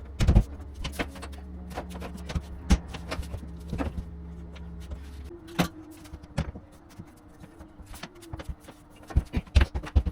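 Laminate floorboards being handled and knocked into place: a string of irregular sharp knocks and clacks, thickest near the end. A low steady hum underneath stops about halfway through.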